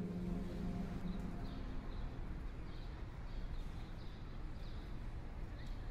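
City street ambience: a steady low background noise, with a small bird chirping high and short many times. The tail of background music fades out in the first second.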